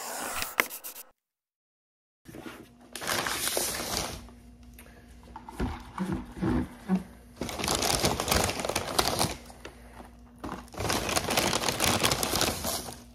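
Paper fast-food bags and wrappers crinkling in repeated stretches as food is unpacked and set out on a table. A few knocks come around the middle as a drink cup and other items are put down.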